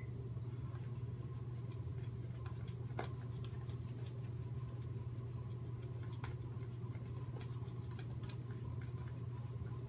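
Faint scraping crackle of a Merkur 37 slant-head safety razor with an Astra blade cutting stubble on a lathered neck and chin, with a few light ticks, over a steady low hum.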